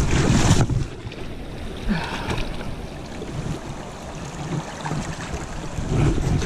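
A brief loud splash at the start as a released trout is let back into the water, then the steady sound of the creek running, with wind buffeting the microphone.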